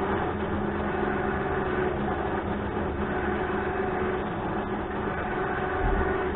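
A motor running steadily, a continuous mechanical hum with several held tones.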